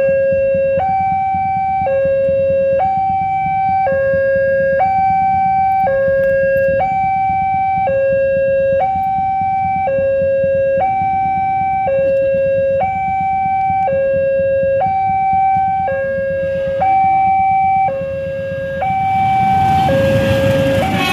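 Railway level-crossing warning alarm sounding its two-tone call, alternating steadily between a lower and a higher tone, each held about a second. Near the end the rumble of a diesel locomotive and train passing over the crossing swells up under the alarm.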